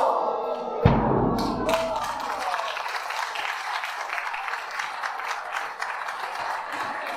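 A large drum struck once with a soft-headed mallet about a second in, its deep boom ringing and fading over a second or so. It is followed by a dense rattle of quick, light clicks.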